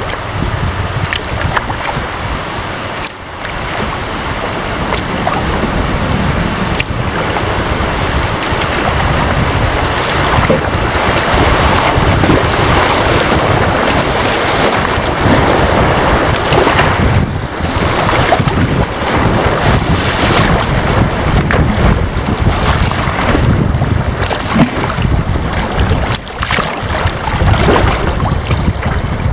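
Rushing water of a small Class I rapid splashing around a kayak's bow, mixed with wind buffeting the camera microphone. Louder from about eight seconds in.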